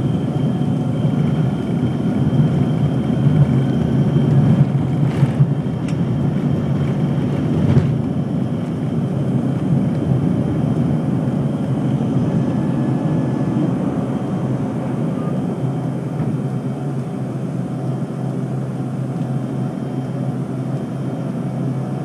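Cabin noise of an American Eagle regional jet on its takeoff roll and initial climb: a loud, steady rush of jet engines and airflow, rougher and louder over the first eight seconds with a brief knock around then, then smoother and slightly quieter once airborne.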